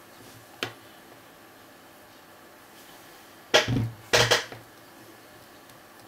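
Disc-detainer pick being worked in the keyway of a Master disc padlock: one sharp click about half a second in, then two short bursts of clicking and scraping with a low knock, around three and a half and four seconds in.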